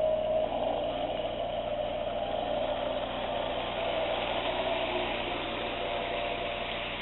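Lionel toy train running steadily around its track, a continuous hum and rumble from its motor and wheels on the rails.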